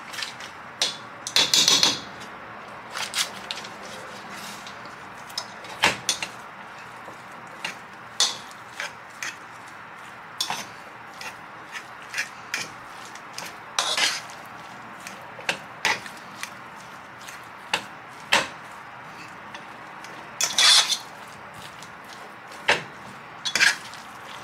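A metal utensil mashing boiled red-skin potatoes in a stainless steel pot, clinking and scraping against the pot's sides and bottom at irregular intervals, with a few louder clusters of clanks.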